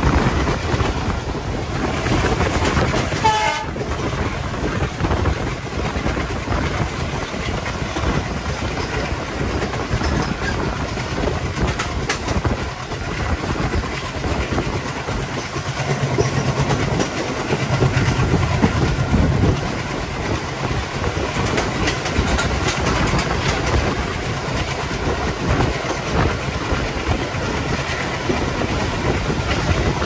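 ALCO WDG3A diesel locomotive's 16-cylinder engine chugging under power, over the steady running noise of a moving train with wheels clattering on the rail joints. The low engine note swells for a few seconds about sixteen seconds in.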